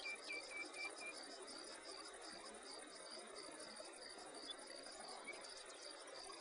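Insects chirping in a steady, fast, even pulse, with a second, lower chirp repeating a few times a second for about the first second.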